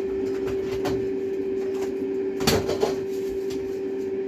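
Kitchen containers being handled: a few light knocks, then a louder clatter about two and a half seconds in, over a steady hum from a running kitchen appliance.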